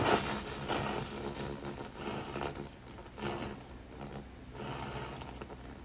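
XPhotonics X1 Pro handheld laser welder firing on sheet steel: a sharp crackle as the beam strikes at the start, then several shorter bursts of crackling spatter, over a steady low hum.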